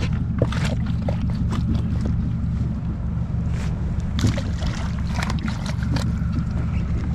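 Steady low rumble with scattered light knocks and splashes from sardine bait being handled in a plastic tub.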